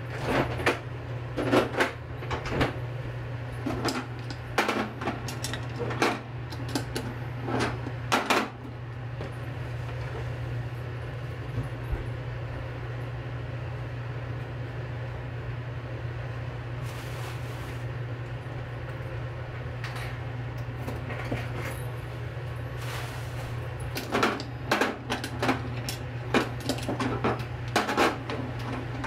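Kitchen handling sounds: scattered sharp clicks and knocks of dishes and utensils being moved, in a busy stretch at the start and again near the end, with a quieter gap between. A steady low hum runs underneath, and a short hiss comes about halfway.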